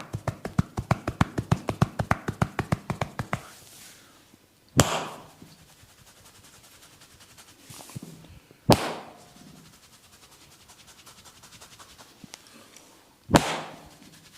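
A barber's hands tapping rapidly on a head during a head massage, about eight quick taps a second for the first few seconds. Then come three loud single smacks a few seconds apart, each with a short echo, and soft rubbing of hair between them.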